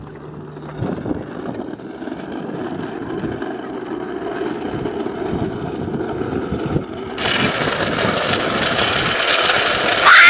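Hard plastic wheels of a drift trike rolling over asphalt while it is towed behind a bicycle, a rough rumble that grows louder. About seven seconds in it turns to a much louder rush of wheel noise and wind, heard from a camera riding on the trike.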